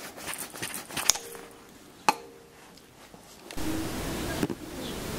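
Needle-nose pliers working the metal contacts out of an electric thermostat's plug socket: small ticks and scrapes, with two sharp clicks about a second apart. About three and a half seconds in, a steady hiss comes in.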